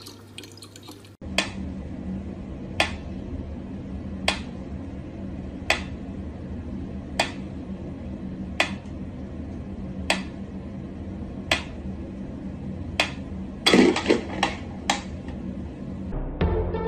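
Mechanical pendulum metronome ticking slowly, one sharp tick about every second and a half, over a steady low hum. Near the end comes a quick cluster of louder knocks and clatter.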